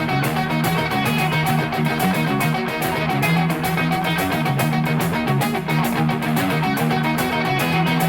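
Background music led by guitar, with a steady beat and bass line.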